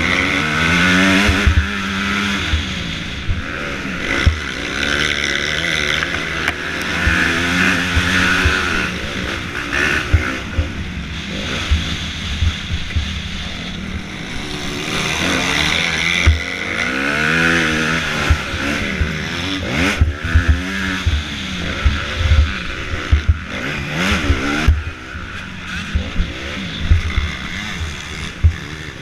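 Motocross bike engine heard from an onboard camera, revving up and dropping back over and over as the rider accelerates and shifts around the track. Wind buffets the microphone, with frequent low thuds throughout.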